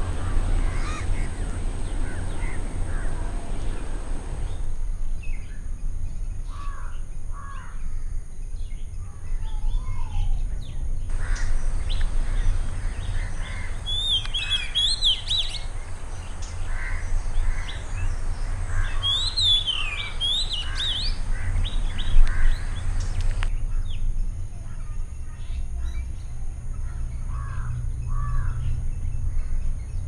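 Oriental magpie-robin singing, in two bursts of loud whistled phrases that swoop up and down, midway through. Other birds give shorter calls before and after. A steady low rumble runs underneath.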